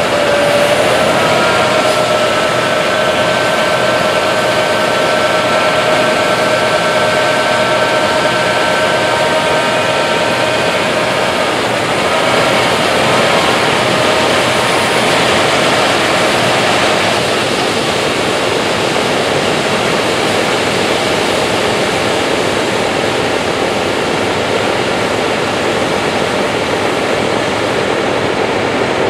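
Large corn-harvest machinery running steadily under load: a dense mechanical rush with a steady multi-tone whine over it for the first dozen seconds, then an even, noisier rush.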